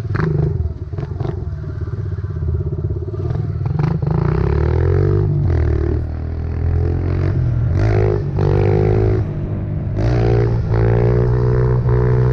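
Pit bike engine accelerating through the gears: its pitch climbs and drops back with each shift, several times over. A few sharp knocks come in the first couple of seconds.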